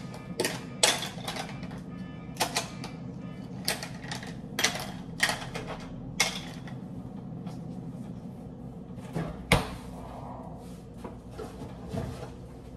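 Ice cubes clattering into a cup, a string of sharp clicks and knocks with a louder knock about nine and a half seconds in, over soft background music.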